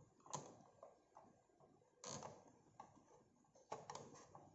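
Faint plastic clicks and creaks of a small LED ring light being turned and handled: a few scattered clicks, the strongest about two seconds in and a quick cluster near the end.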